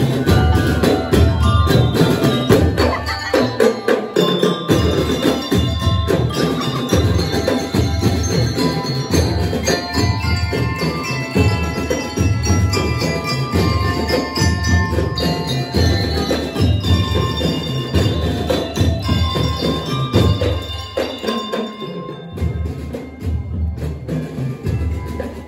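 Drum and lyre corps playing: bass and snare drums beating a fast driving rhythm under a melody on bell lyres struck with mallets. The low drums drop out briefly twice, about three seconds in and again about twenty seconds in.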